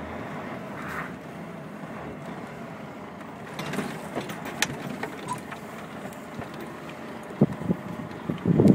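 Cab of a Volvo 660 truck with its engine running steadily. Scattered clicks and knocks come in from about three and a half seconds, and near the end there is a loud burst of rubbing and knocking.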